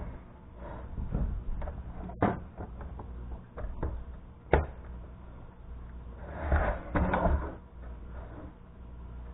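Plastic clicks and knocks as a computer monitor's plastic case is handled and snapped together, with a sharp click about two seconds in, another about halfway, and a stretch of rustling handling noise later on.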